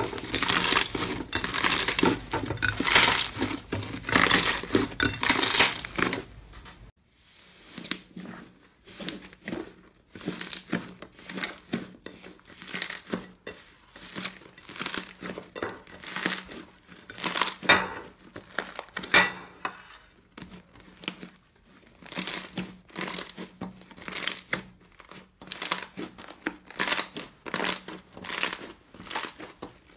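Hands kneading and squeezing thick slime, making wet crackling and clicking. The crackles are dense and loud at first. About seven seconds in they change suddenly to quieter, separate bursts, about two a second.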